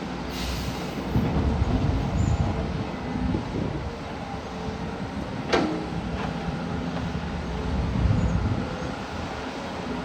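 Caterpillar excavator's diesel engine running steadily under working load, swelling twice as it works. There is a short hiss near the start and one sharp metallic clank about halfway through.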